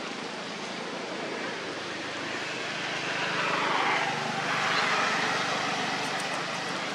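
Steady hiss of heavy rain, with a louder whooshing swell that builds and fades from about three to five and a half seconds in.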